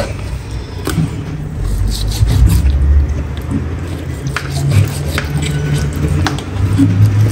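Kitchen knife cutting up a raw whole chicken on a wooden cutting board: scraping and squishing of the blade through skin and meat, with scattered sharp clicks of the knife against the board, over a steady low rumble.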